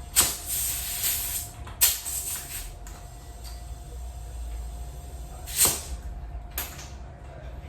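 Short bursts of hissing air, the first two about a second long, then two briefer ones, as a bicycle tire is inflated again to seat its bead evenly in the rim.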